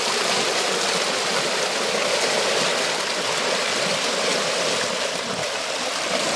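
Shallow river running fast over a rocky riffle: a steady rush of moving water.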